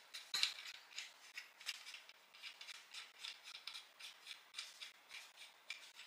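Paper instruction leaflet being handled, making a string of short, irregular crinkles and rustles, with one sharper click about half a second in.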